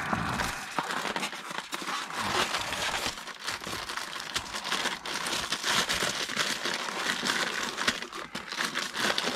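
Clear plastic wrap around a die-cast model truck trailer crinkling and crackling continuously as hands handle it in its foam packing tray.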